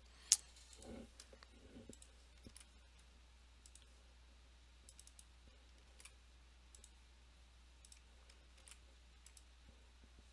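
Quiet, scattered computer mouse and keyboard clicks, with one sharper click shortly after the start, as login details are selected, copied and entered.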